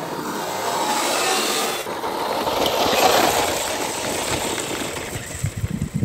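Big tyres of a 1/10-scale electric RC crawler truck crunching and scraping over frozen gravel and dirt as it drives close by and then climbs a hill, swelling twice and then fading. Wind begins to buffet the microphone near the end.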